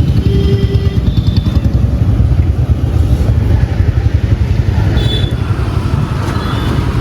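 Motor vehicle on the move: a loud, fluttering low rumble of engine and road noise, with a few faint short tones from traffic.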